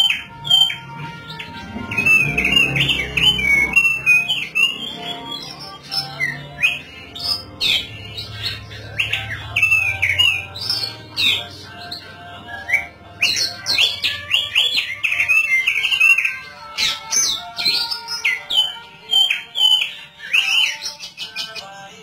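Thick-billed white-eye singing in a cage: a long, near-unbroken run of quick, sharp chirps and rapid whistled slurs that sweep up and down in pitch.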